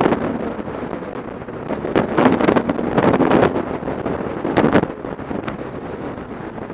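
BMW R 1200 GS Adventure's boxer-twin engine running at speed on a rough gravel track, nearly buried under heavy wind buffeting on the helmet microphone. Sharp knocks and rattles from the tyres and suspension over stones come through, loudest from about two to three and a half seconds in and again near five seconds.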